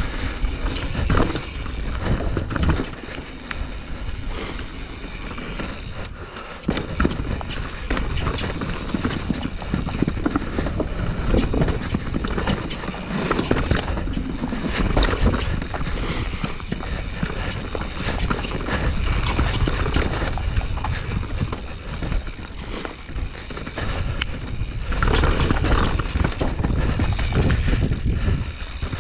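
Mountain bike riding down dirt and rock singletrack: tyres rolling over the trail, with a constant rattle and many knocks from the bike over bumps and roots.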